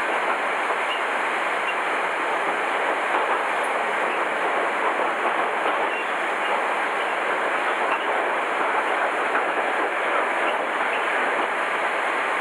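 Tashkent metro train running between stations: a steady noise of wheels on the rails.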